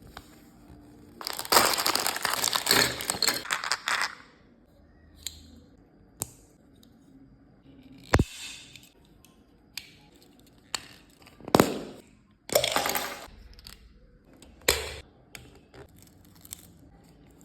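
Plastic packaging crinkling and tearing as a mini toy gumball machine is unboxed, with a long loud stretch in the first few seconds and shorter bursts later. Sharp plastic clicks and snaps come in between as its parts are handled and fitted together.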